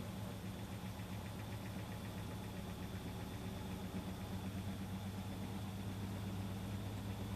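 Panasonic NA-FA10K1 top-loading washing machine running with a steady low hum.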